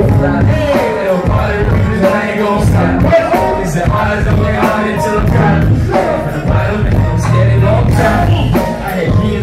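Live hip-hop performance over a loud club PA: a heavy bass beat and drums from a live band, with male vocals on microphones over it.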